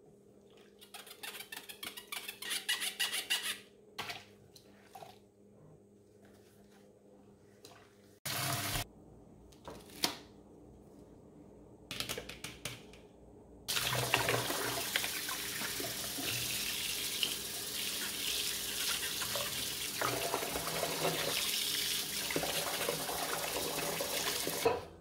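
Quick scrubbing strokes of a long brush in a plastic tub of soapy water, with a few knocks of plastic. About fourteen seconds in, the kitchen faucet runs steadily, its stream splashing into the water-filled plastic tub until just before the end.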